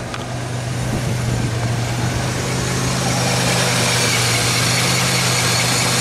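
2003 Pontiac Grand Am GT's front wheel hub and brake rotor spinning off the ground with the engine running in gear: a steady engine hum under a grinding hiss from the hub that grows louder over the first few seconds and then holds steady. The grind is the sign of a worn front wheel bearing.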